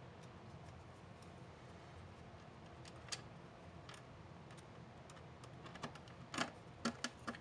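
Faint scattered clicks and taps of a long screwdriver seating on and turning a screw in a plastic flashlight housing. A single click comes about three seconds in, and a few more come close together near the end.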